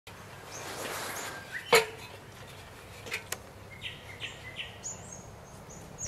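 Birds calling outdoors, a series of short, flat whistled notes at a high and a middle pitch. A few sharp knocks cut in, the loudest about two seconds in and two more close together just after three seconds.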